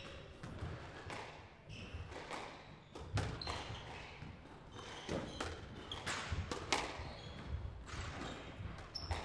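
Squash rally: sharp knocks of the ball off the rackets and the court walls, irregularly spaced, starting about three seconds in, with players' footsteps thudding on the court floor.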